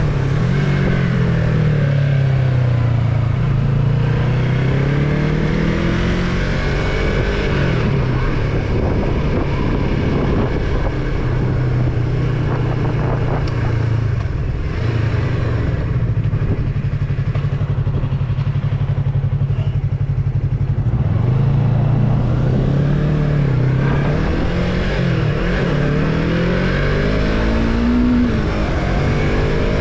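Yamaha MT-03 motorcycle engine under way. The pitch climbs and drops repeatedly in the first several seconds as it accelerates through the gears, holds steady while cruising through the middle, then climbs again in steps near the end.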